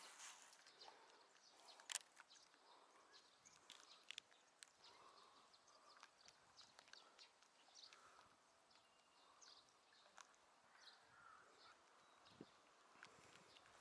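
Near silence: faint outdoor background with a few scattered soft clicks, one sharper click about two seconds in, and brief faint high chirps.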